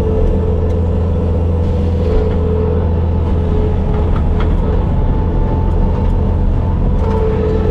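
Bobcat skid steer's diesel engine running steadily, with a steady whine over the engine note and a few faint light clicks.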